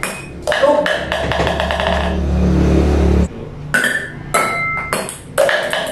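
Ping pong balls bouncing off a wooden table and onto ceramic plates: a quick run of sharp clicks and clinks, several with a short ringing plate tone. A low hum runs underneath in the middle and cuts off suddenly about three seconds in.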